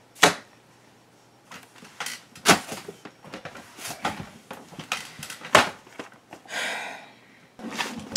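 Several sharp knocks and lighter taps of objects being handled and set down, with a short rustle near the end.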